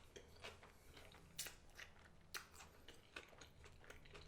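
Faint close-up chewing of a mouthful of burger: soft, irregular wet mouth clicks, with two louder ones about one and a half and two and a half seconds in.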